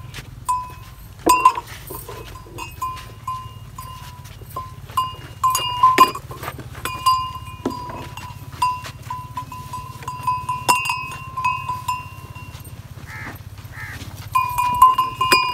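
Cattle and goats feeding at a wooden trough of fresh green fodder: chewing and sharp knocks against the wood, with a short high note repeating every half second or so and a steady low hum underneath.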